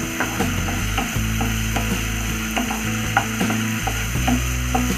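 Wooden spatula scraping and clicking against a non-stick kadai as prawns are stirred while frying in oil, over a steady low hum.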